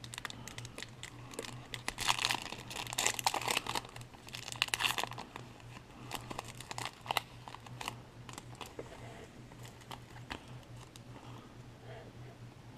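Foil wrapper of a baseball card pack being torn open and crinkled, crackling in bursts for the first five seconds or so, then fainter rustling with scattered clicks.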